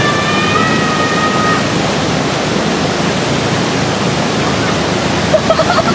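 Steady loud rushing of water flowing over the rocks of a jungle stream bed.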